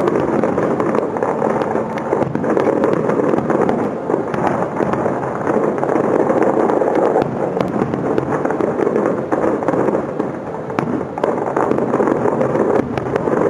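Fireworks display finale: a dense, unbroken barrage of shell bursts and crackling.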